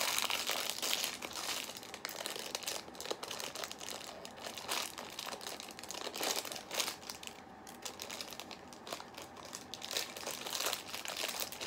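A small wrapper crinkling in the hands as it is worked open, in irregular crackles.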